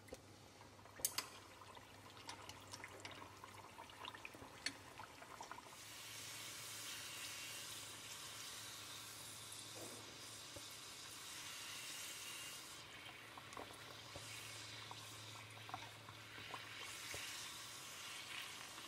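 A thickly rolled round of bánh tiêu dough deep-frying in hot oil in a stainless steel pot. A few sharp clicks and scattered crackles at first, then a steady sizzle from about six seconds in.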